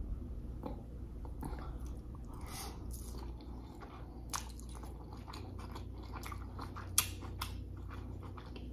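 Close-up chewing of a forkful of burrito bowl with rice, chicken and shredded lettuce, with small wet mouth clicks and smacks and a soft crunch; one sharper click about seven seconds in.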